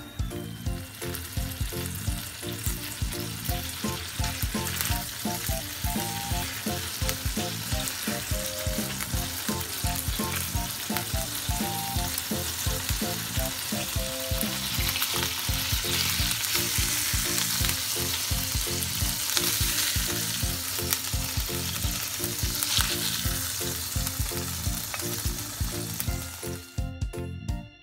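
Burger patties frying in a pan with a little added water, a steady sizzle and crackle as the water steams off so the patties cook through. The sizzle is loudest around the middle and cuts off just before the end.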